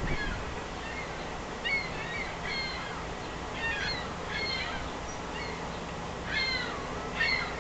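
A bird calling outdoors: about six short calls that fall in pitch, coming in three pairs, over a steady low background rumble.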